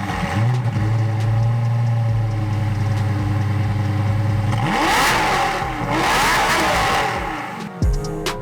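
Car engine running at a steady speed, then revved up and down a few times about halfway through.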